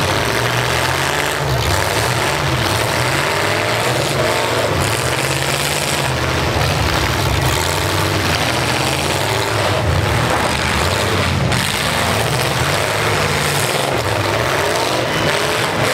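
Demolition-derby truck engines revving hard, their pitch rising and falling as the trucks push and ram each other, with a few brief bangs of metal hitting.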